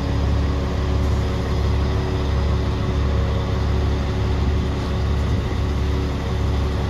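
Crane truck's diesel engine running steadily to drive the hydraulics of its Palfinger loader crane, a constant low rumble with a steady hum over it.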